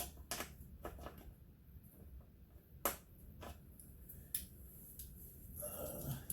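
Scattered sharp clicks and clinks of metal hand tools being handled, as wrenches are picked through and set down one at a time.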